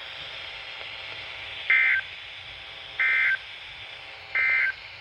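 Emergency Alert System end-of-message (EOM) SAME data bursts: three short bursts of warbling digital tones about a second and a quarter apart, over steady radio hiss, marking the end of the warning broadcast.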